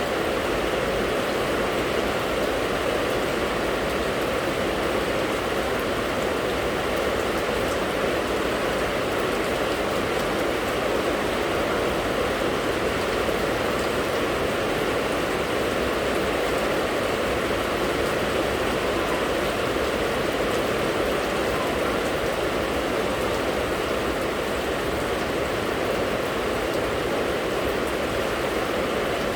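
Steady rain falling, an even rushing sound with no breaks or single drops standing out.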